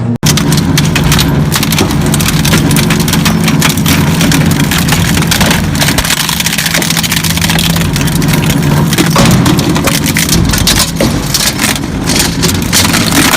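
Heavy crushing machine running loud under load: a steady motor hum with dense cracking and crunching as material is broken up.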